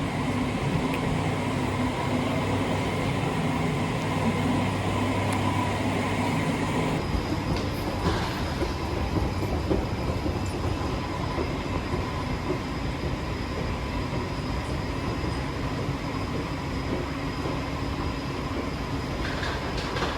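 Steady running noise of the KA Pangandaran passenger train in motion, an even rumble with a faint steady hum.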